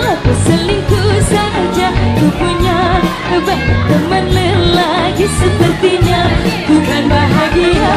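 Background pop song with singing over a steady beat of about two hits a second.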